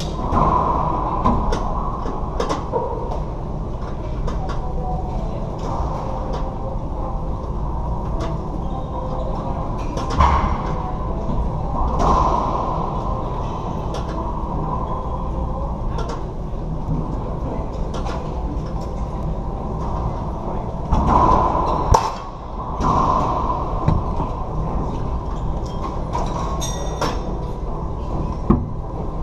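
Racquetball rally: the hard rubber ball cracking off racquets and the court walls in repeated sharp smacks that echo around the enclosed court, over a steady low rumble.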